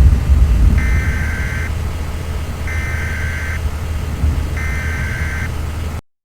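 Three data bursts of an Emergency Alert System (SAME) header announcing a tornado warning: harsh buzzing chirps about a second long and about two seconds apart, over a steady low vehicle rumble. The sound cuts off abruptly near the end.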